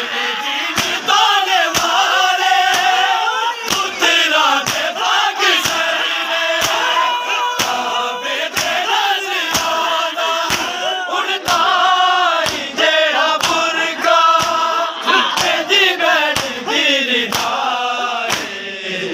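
Crowd of men chanting a mourning lament together, with the sharp slaps of open hands beating on bare chests (matam) in a steady beat, about three slaps every two seconds.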